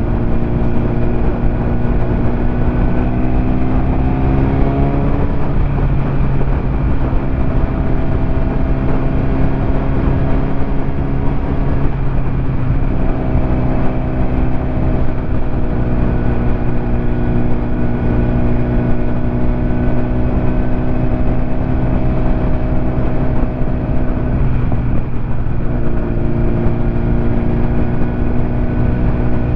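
BMW S1000RR sport bike's inline-four engine running under way, over steady wind rush. Its note climbs over the first few seconds, breaks and drops about five seconds in as it changes gear, then holds steady at cruise with two brief changes in pitch around twelve and twenty-five seconds in.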